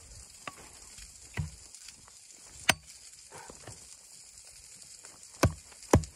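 Hatchet chopping into a wooden plank: a few spaced blows in the first half, then two hard strikes about half a second apart near the end, over a steady hiss of rain.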